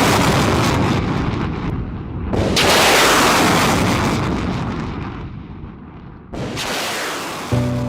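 Tornado-S 300 mm multiple rocket launcher firing rockets. Each launch is a sudden roar that fades over a few seconds: one is already under way at the start, another begins about two seconds in and a third near the end.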